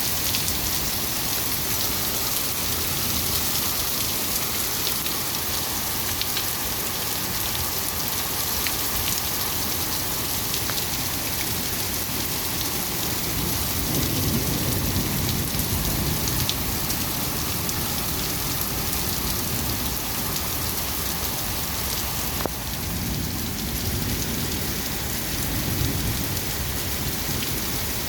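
Heavy rain falling steadily during a thunderstorm, with low rumbles of thunder about halfway through and again near the end.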